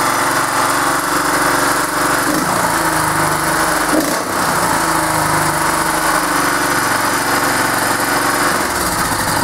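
Möller 6.5 hp 196 cc single-cylinder petrol engine running steadily, driving the log splitter's hydraulic pump.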